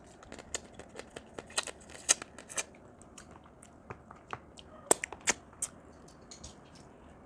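Crab shells being cracked and pulled apart by hand: a run of sharp, irregular cracks and clicks, a dozen or more, with brief pauses between.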